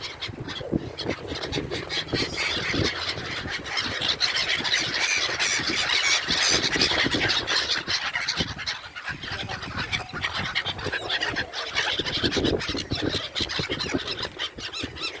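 A large flock of seabirds calling over one another in a dense, continuous squealing chatter, busiest in the middle.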